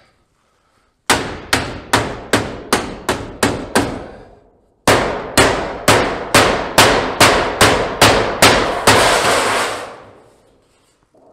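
Two runs of quick, regular strikes on painted sheet-steel roofing, about two and a half a second, each hit ringing briefly in the metal. About eight strikes come first, then after a short gap about ten more, ending in a longer rattle of the sheet metal lasting about a second.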